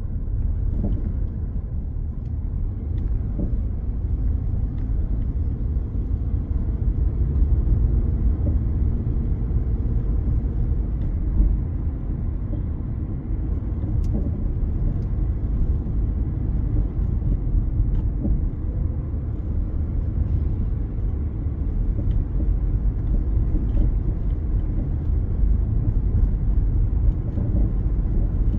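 A car driving slowly on a city street, heard from inside the cabin: a steady low rumble of engine and tyre noise.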